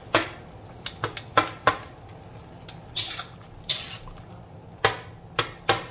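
Metal spatula scraping and clinking against the side of a metal wok while stirring a wet ground beef and tomato mixture: about ten separate sharp scrapes and knocks, a couple of them drawn out a little longer.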